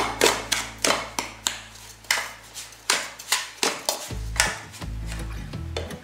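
Wooden spatula scraping and stirring sugar into cooked azuki beans in a metal saucepan, in quick strokes about three a second that stop about four and a half seconds in. Background music plays underneath.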